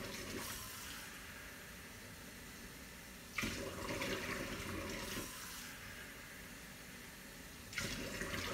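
Water pouring into a container in bursts of about two seconds, roughly four seconds apart.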